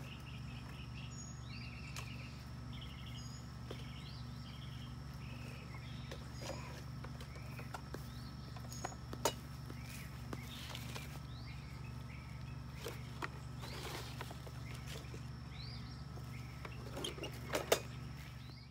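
Small birds chirping in short repeated phrases over a steady low hum, with rustling and a few sharp snaps as mulberry leaves are picked off the branches, the loudest snap near the end.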